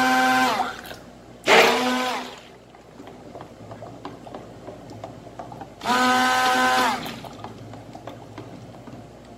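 Handheld stick blender run in three short bursts of about a second each in a steel bowl of thick cream. Its motor whine holds steady, then drops as each burst is released. This is the emulsifying stage of making a face cream, blended well so it won't separate.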